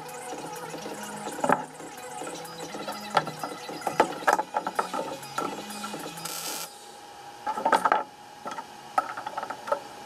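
Steel tubing clinking and knocking as it is handled and fitted into a tube-frame chassis, with a denser cluster of knocks near the end. Background music with a repeating bass line plays under it and stops about two-thirds of the way through.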